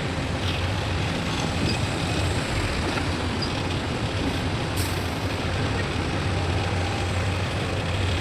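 Heavy truck engine running with a steady low drone, mixed with road and traffic noise. There is a short hiss about five seconds in.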